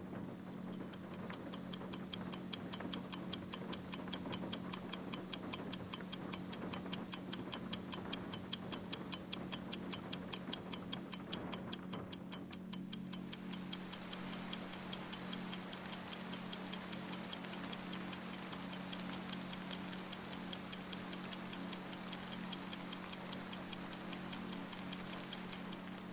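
Clock ticking steadily, about two ticks a second, over a low steady hum. The ticks begin about a second in.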